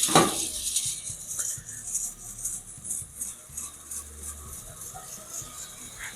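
A sharp clunk, then an uneven, fluttering rattle from a Bauer 8-inch variable-speed bench grinder fitted with a KFMK 2x48 belt grinder attachment as it spins up.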